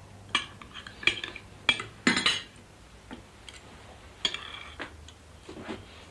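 Cutlery and china clinking at a meal table: a scattered series of short sharp clinks, with a longer rattle about two seconds in.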